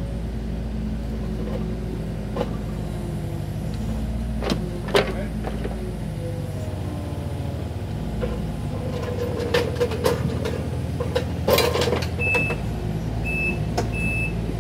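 Takeuchi mini excavators' diesel engines running under load with hydraulics working as one machine pulls the other, stuck in a collapsed trench, free. There are sharp metal clanks from buckets and tracks about four to five seconds in and again near twelve seconds, and near the end a high beeping alarm sounds in short repeated tones.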